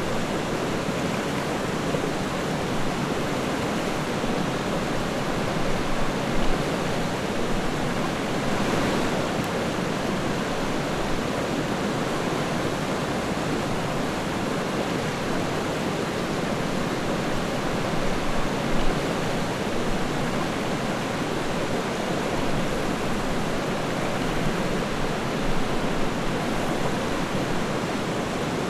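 River water flowing and rushing steadily, with a few brief louder surges.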